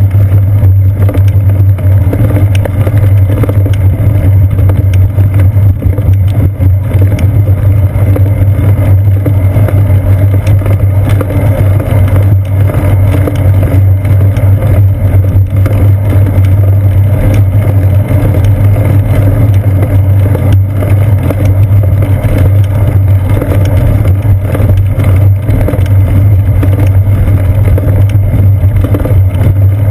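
Steady low rumble of a bicycle rolling along a paved path, its road vibration carried up the seat post into a mounted camera housing, with many small knocks and rattles from bumps in the surface.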